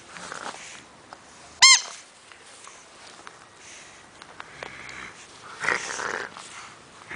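Pug puppy at tug-of-war with a rope toy: scattered breathy, scuffling play noises. One short, loud, high squeak, rising and falling in pitch, comes about a second and a half in, and a louder burst of scuffling noise comes near the end.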